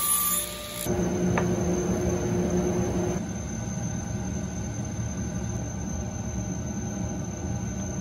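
Table saw cutting an oak strip for about the first second, running with a steady whine. After that comes a quieter, steady machine hum.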